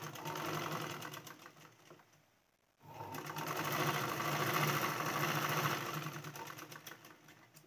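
Domestic sewing machine stitching in two runs. It slows to a stop about two and a half seconds in, starts again a moment later, builds up speed, then slows and stops near the end.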